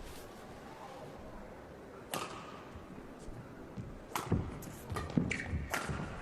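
Badminton racket strikes on a shuttlecock during a rally: sharp hits about two seconds in, just after four seconds, and twice close together near the end, with a few low thuds between them.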